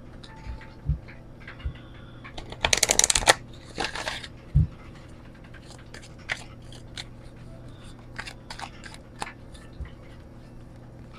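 A deck of oracle cards being shuffled by hand: a quick run of rapid flicking clicks about three seconds in, the loudest part, with a shorter run just after. A few low thumps and scattered light card slaps and clicks follow as the cards are passed from hand to hand.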